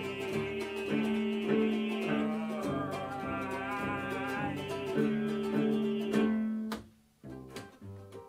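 Live cello and ukulele playing together, long bowed cello notes under steady ukulele strumming, with wordless singing. About seven seconds in the full sound cuts off, leaving quieter plucked ukulele notes.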